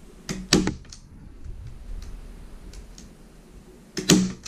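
Hand staple gun firing staples through paracord into a wooden canoe seat frame: a sharp double clack about half a second in and another near the end, with faint ticks between.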